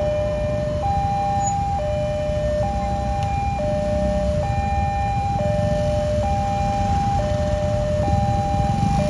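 Railway level-crossing warning alarm sounding, a two-tone electronic signal alternating between a lower and a higher tone about once a second, warning that a train is approaching. A steady low rumble lies beneath it.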